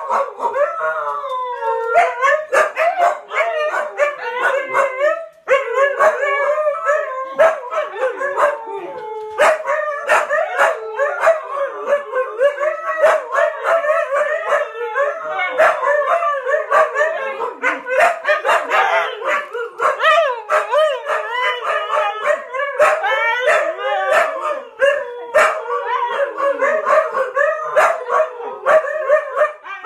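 Two huskies howling together: overlapping, wavering howls that go on almost without a break, with short yips mixed in.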